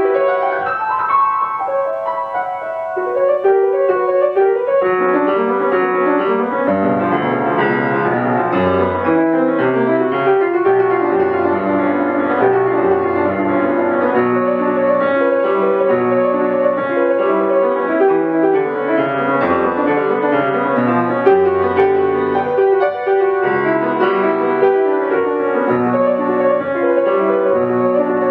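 Solo piano playing a continuous passage of many quick notes. It is a little quieter for the first few seconds, then fuller and louder.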